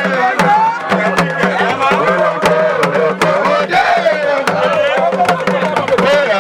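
Music with a fast drum beat and a steady bass line, with pitched melody lines bending over it.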